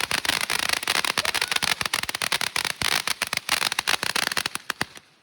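Consumer fireworks going off in a dense run of rapid crackling pops, which cut off abruptly near the end.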